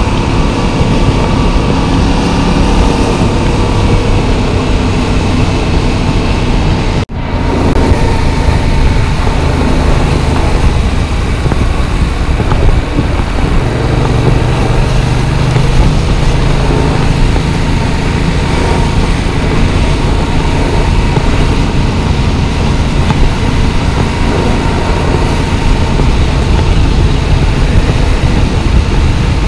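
Yamaha MT-07's 689 cc parallel-twin engine running steadily under way, mixed with wind noise. The sound cuts out for an instant about seven seconds in.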